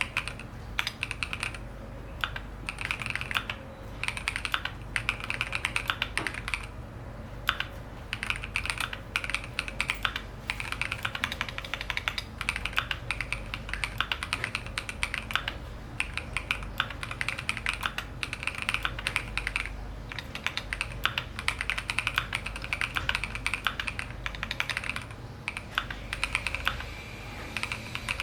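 Fast typing on a Keychron Q1 Pro aluminium mechanical keyboard with linear switches: a dense run of key clacks, broken by a few short pauses.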